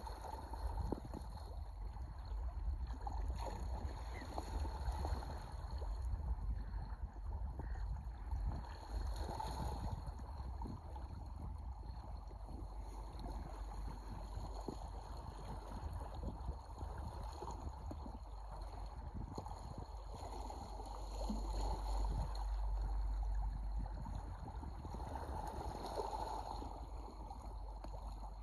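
A large flock of scoters (Melanitta sea ducks) calling together on open water, a continuous murmuring chorus that swells and fades in places, over a steady low rumble of wind and waves.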